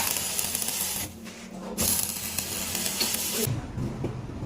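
Metal lathe cutting steel: a steady machine hum under the hiss and scrape of the tool on the workpiece, with the level dropping and jumping abruptly a few times.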